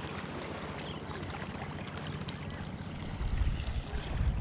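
Steady outdoor rush with wind buffeting the microphone, the low rumble swelling about three seconds in.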